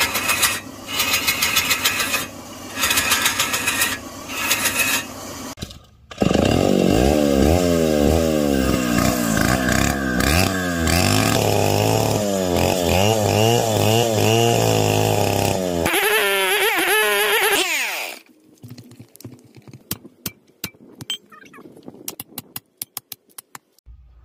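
A tool cutting wood on a spinning lathe in loud bursts of about a second each. About six seconds in, a gasoline chainsaw runs, cutting through a wooden log with its engine pitch wavering under load; it winds down and stops near eighteen seconds, leaving faint clicks and scraping.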